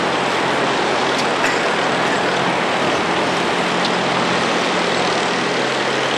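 Steady traffic noise with the low, even hum of idling vehicle engines, unchanging throughout.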